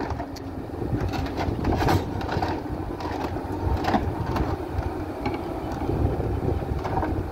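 Kubota KX91-3 mini excavator's diesel engine running steadily under load as it crawls up steel loading ramps, with irregular clanks and knocks from the tracks on the metal ramps.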